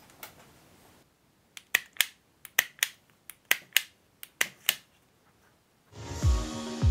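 Hand pliers snipping and stripping the insulated cores of a cable: a series of about a dozen sharp clicks in small clusters. Electronic background music with a thumping beat comes in near the end.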